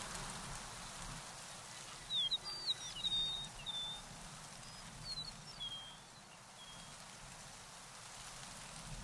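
A songbird singing short, quick chirping phrases, once about two seconds in and again about five seconds in, over a steady outdoor background hiss.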